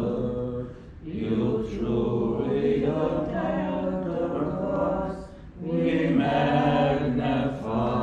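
Voices chanting a prayer on long held notes, in three phrases with short breath pauses about a second in and again about five seconds in.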